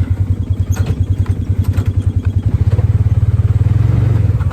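Vehicle engine running with a fast, even low pulse, with a few light clatters over it. The engine gets louder from about halfway through and settles back right at the end.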